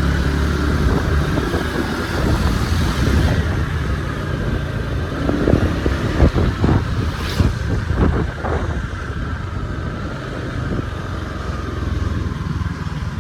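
A motor vehicle's engine running steadily under wind noise while driving along. Several sharp knocks come about halfway through.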